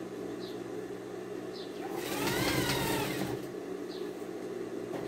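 Industrial straight-stitch sewing machine with its motor humming steadily, then stitching in one burst about two seconds in, its whine rising and then falling as it speeds up and slows down, while it sews a binding strip onto a cotton dish towel.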